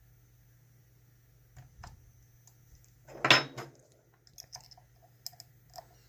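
Steel lock picks and a tension bar working in a dimple lock cylinder: scattered light metallic clicks and clinks, with one louder metal clatter about halfway through.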